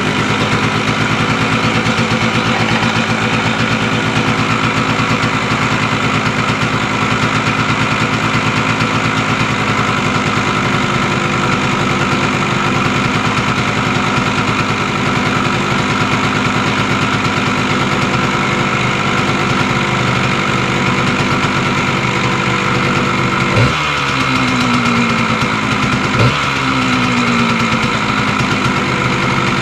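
1974 Yamaha Enduro's two-stroke single-cylinder engine running steadily at idle. Near the end the throttle is blipped twice, a couple of seconds apart, the revs falling back to idle each time.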